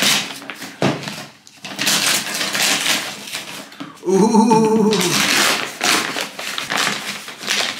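Brown paper wrapping torn off a cardboard box by hand: several rips and crinkles, with pauses between them.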